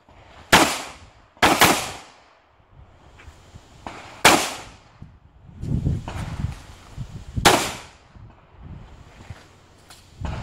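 Handgun shots fired on a competition stage: four sharp reports, two about a second apart, then single shots about three and six seconds later, each with a short echoing tail. Low rumbling noise comes in between the shots.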